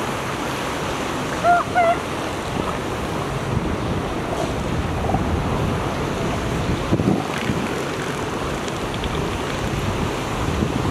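Steady surf and wind noise over a northern elephant seal colony, with two short high calls about a second and a half in and a rough vocal burst from the elephant seals around seven seconds.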